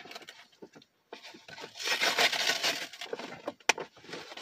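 Rustling and scraping as a comic book is handled and brought out of its packaging, with one sharp click near the end.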